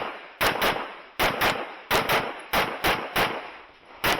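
Handgun fired in rapid pairs during a timed IPSC stage: double taps about a quarter second apart, a new pair roughly every two-thirds of a second, each shot trailing off in a short echo.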